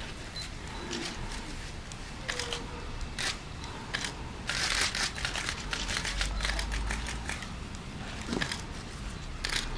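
Small stick fire crackling and popping with irregular sharp clicks, and a denser rustling burst about five seconds in.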